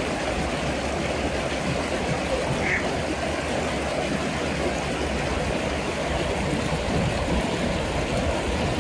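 Fast-flowing water in a town waterway, rushing steadily.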